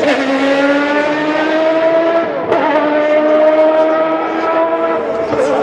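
Race car engine running at high revs, its pitch holding high and slowly rising, with a short dip about two and a half seconds in and a slight fall near the end.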